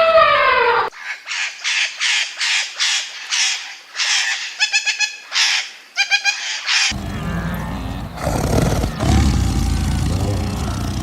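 A bird calling in a quick series of short calls, about two a second, for several seconds. About seven seconds in, a different, fuller and noisier animal sound with a low rumble takes over.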